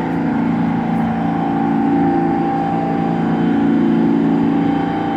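Stopped New York City subway train with its doors open, its onboard equipment humming steadily in several held tones.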